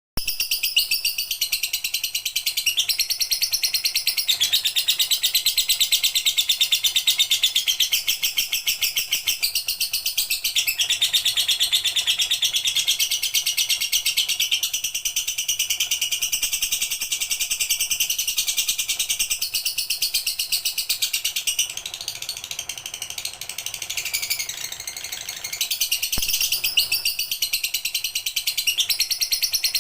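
Lovebird singing a long, unbroken run of very fast, high-pitched chattering trills, briefly quieter for a few seconds past the middle before picking up again.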